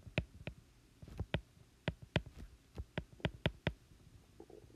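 A stylus tip tapping and clicking on a tablet's glass screen while handwriting: about a dozen short, irregular clicks.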